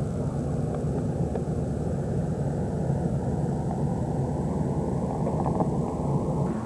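Steady low engine rumble, running evenly without change.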